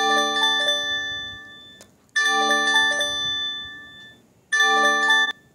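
Android Earthquake Alerts System test alarm sounding from a phone: three bursts of rapid bell-like chimes a little over two seconds apart, each fading away, the third cut off abruptly near the end.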